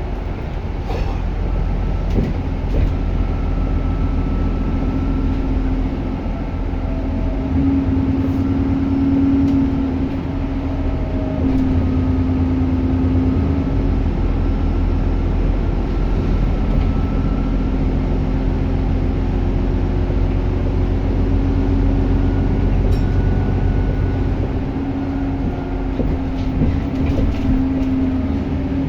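Diesel bus engine running on the move, heard from on board: a steady low drone and rumble, with a thin whistling turbocharger whine that drifts up and down in pitch as the bus speeds up and slows.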